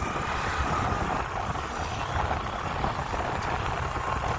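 A motor vehicle driving along a road: a steady engine and road rumble with a faint high whine.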